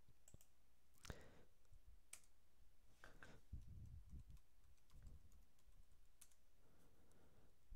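Faint, scattered computer keyboard keystrokes and mouse clicks over near-silent room tone.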